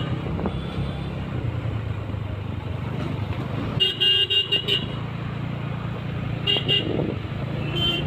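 A scooter's engine running steadily as it rides slowly through traffic. Over it a vehicle horn toots in a quick string of about six short beeps about four seconds in, then a few more beeps later on.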